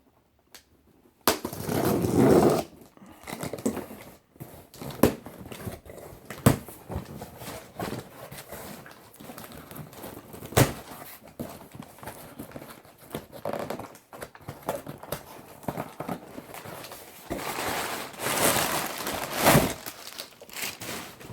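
Thick cardboard box being torn open and handled: cardboard and tape tearing and rustling, loudest about a second in and again near the end, with scattered sharp knocks in between.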